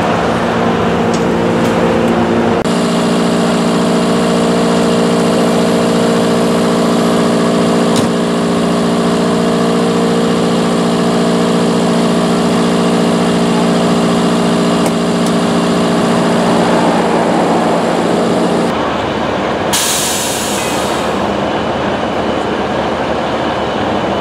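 Emergency vehicles' engines idling, a loud, steady hum with a constant pitch. Its tone shifts slightly about three seconds in. About nineteen seconds in the hum drops out and leaves a rougher rumble, followed by a short hiss.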